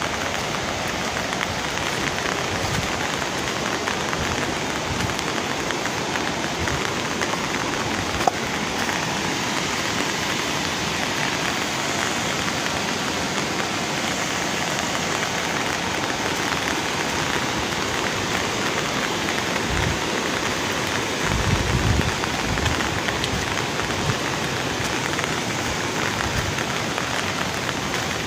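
Heavy rain pouring steadily, with one sharp tick about eight seconds in and a brief low rumble about two-thirds of the way through.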